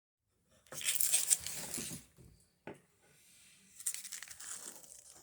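Rustling and crinkling in two bursts, with a single sharp knock between them.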